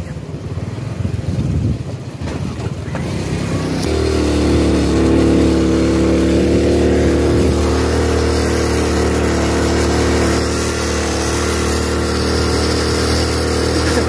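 Motorcycle engine pulling up a steep hill climb under load. It is rough and quieter for the first few seconds, then settles into a louder, steady drone from about four seconds in.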